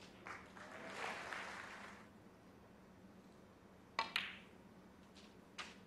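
Sharp clicks of snooker balls being struck: two close together about four seconds in and a lighter one near the end, over a soft swell of background noise in the first two seconds.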